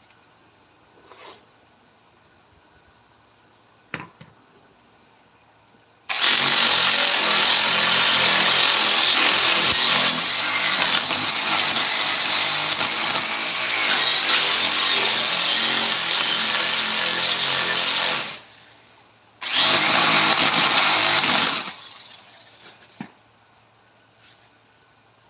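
A handheld power tool working on wood runs steadily for about twelve seconds, stops, then runs again for about two seconds. A single sharp knock comes a couple of seconds before it starts.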